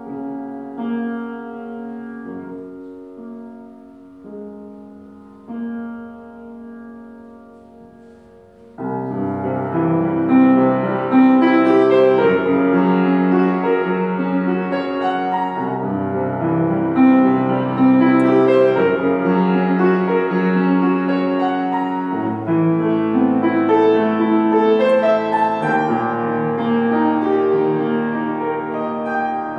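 Solo piano playing: a soft passage of held chords, then about nine seconds in the music turns suddenly loud, with fast, dense notes running through the low and middle registers.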